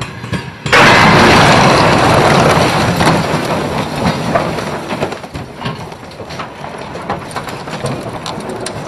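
Train crash: a sudden loud impact about a second in, then a long crunching and rumbling of twisting metal that slowly fades, with scattered cracks and clatters.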